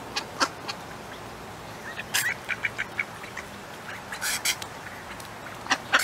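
Mallard drake making short, sharp sounds: a few single ones, a quick run of several about two and a half seconds in, and a cluster near the end.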